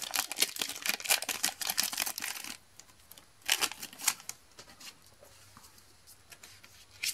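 Foil wrapper of a Pokémon booster pack crinkling and tearing as it is opened by hand, a dense run of crackles for about two and a half seconds. Then two short rustles as the cards are slid out of the foil.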